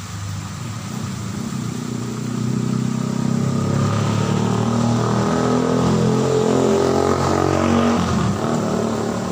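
A motor vehicle's engine passing close by: it grows louder over a few seconds, holds, then drops in pitch and fades near the end.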